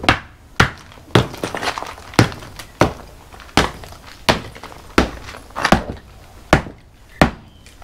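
Club hammer striking concrete rubble, breaking it into smaller pieces: a steady series of sharp blows, about one every two-thirds of a second.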